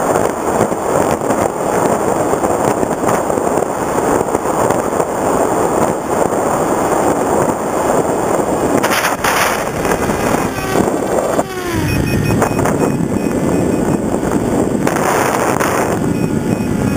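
Onboard in-flight sound of an FPV Raptor electric foam plane: wind rushing over the camera microphone together with the whine of its electric motor and propeller. The whine falls in pitch around ten seconds in, and the sound turns lower and fuller from about twelve seconds.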